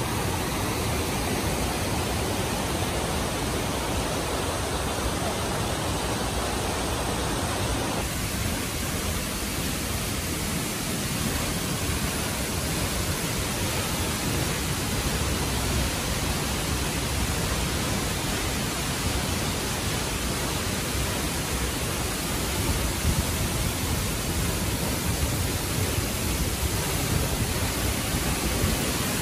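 Tall waterfall plunging into a rocky pool: a steady, even rush of falling water, its tone shifting slightly about eight seconds in.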